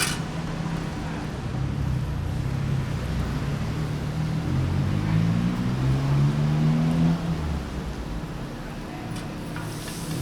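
A motor vehicle's engine running on the street, its pitch climbing as it accelerates from about four to seven seconds in, over steady traffic noise. A sharp clink comes right at the start.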